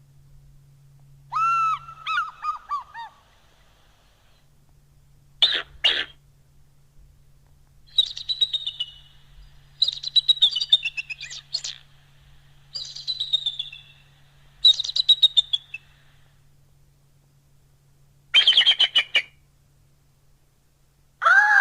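Griffin creature sound effects: a series of about eight separate bird-like screeches and chirping calls with short pauses between them, most of them falling in pitch.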